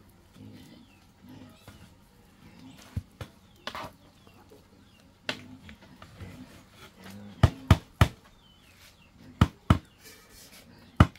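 Long wooden paddle knocking sharply against the rim of a large metal cooking pot of boiling pig feed as it is stirred. The knocks come singly at first, then in quick pairs and threes in the second half.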